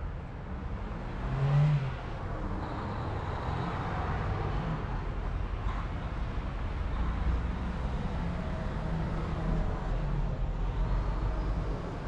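Street traffic: a car engine rumbles and accelerates past, with a brief louder low hum about a second and a half in.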